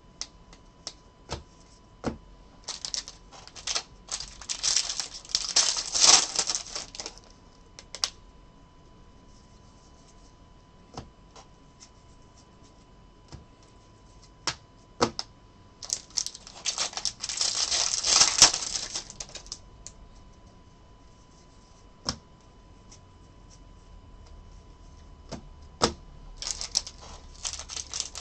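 Bowman baseball cards flipped through by hand: scattered single clicks of card edges, with two runs of rapid riffling and sliding, a few seconds in and again midway. Near the end, a foil card pack crinkles as it is handled.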